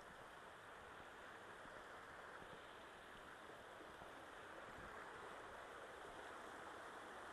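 Faint, steady rush of a shallow rocky creek running over stones.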